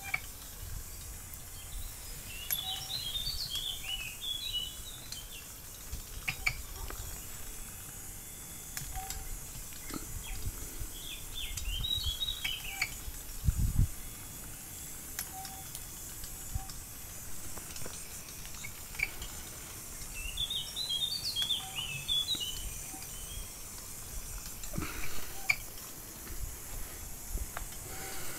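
A songbird singing short bursts of rapid high chirps, four times, over a low rumble with scattered clicks.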